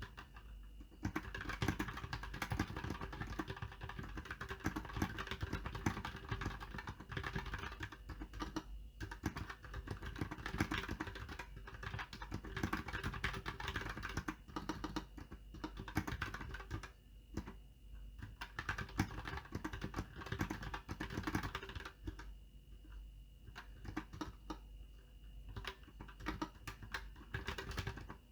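Fast, continuous typing on a SKYLOONG GK64X 60% mechanical keyboard with Outemu Red linear switches and XDAS-profile canvas keycaps, a dense stream of keystroke clacks with a few brief lulls.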